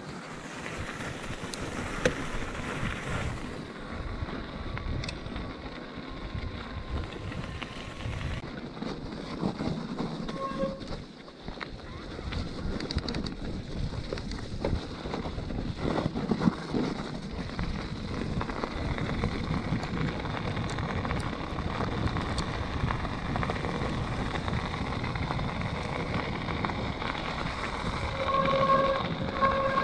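Riding noise of a plus-tyre Scott E-Genius e-mountain bike: tyres rolling and crunching over a gravel path, with wind rush on the microphone. Near the end come two short high tones.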